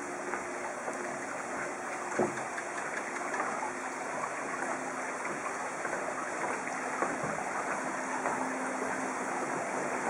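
Steady rush of running water, with a few soft knocks, one clearer about two seconds in.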